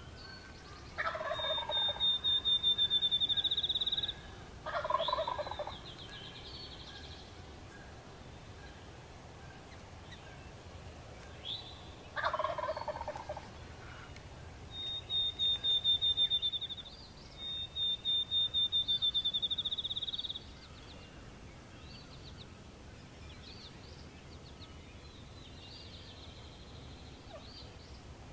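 A wild turkey gobbler gobbles three times, each gobble a falling rattle about a second long: the first near the start, then two more about four and eleven seconds later. Between and over the gobbles, a songbird sings a high, rapid trill several times, and the trills are the loudest sound.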